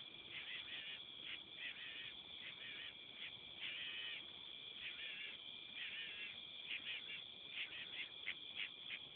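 Birds squawking and squabbling in the dark, which the recordist takes for hawks fighting: a string of short, harsh calls that come quicker near the end, over a steady high tone.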